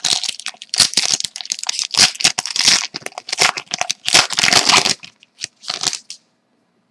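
Crinkly wrapper of a 2012-13 Rookie Anthology hockey card pack being torn open and crumpled by hand, in a dense run of crackling rips for about five seconds. Then come a couple of short crinkles.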